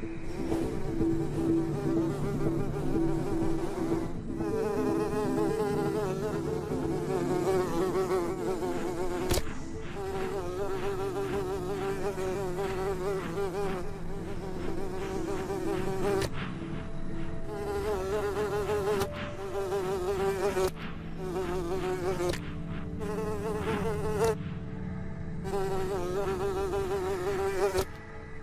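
Small flying insects buzzing, the pitch wavering up and down as they dart about, in a string of short stretches that break off abruptly and start again. A lower hum runs beneath.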